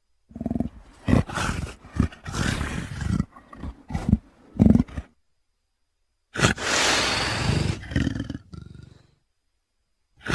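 Animal calls made by mixing wolf and leopard recordings: a quick run of short roaring calls for about five seconds, then after a short pause one long roar.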